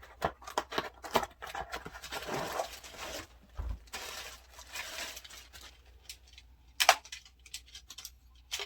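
Hands handling a ring light and its packaging: a run of small clicks and taps, a few seconds of rustling, then a couple of sharp knocks near the end.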